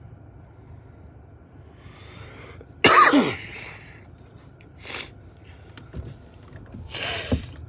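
A man coughing: one loud, hard cough about three seconds in and a smaller cough near the end, over a low steady hum.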